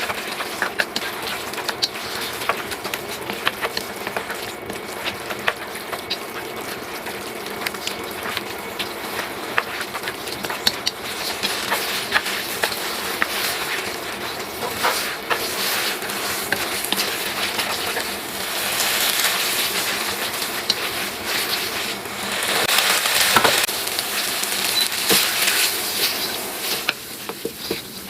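Food sizzling in a hot pan, with a utensil stirring and clicking against the pan. The sizzle swells twice in the second half.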